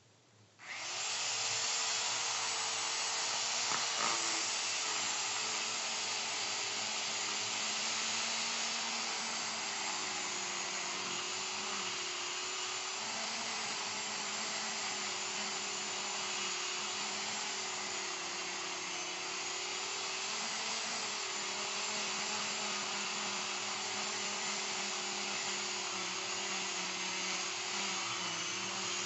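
Small electric chainsaw cutting into the base of a tree trunk to fell it. It starts about half a second in and runs steadily with a high whine, its pitch sagging a little now and then under load.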